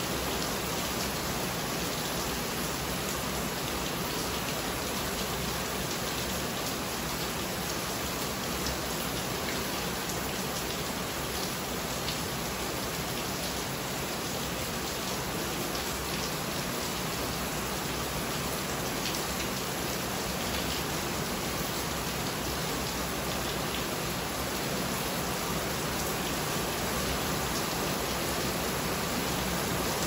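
Steady rain falling on the carport roof overhead and the houses around it, an even hiss with single drops heard striking close by.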